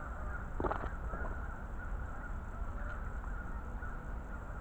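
Outdoor background with a steady low rumble, and one short bird call a little under a second in.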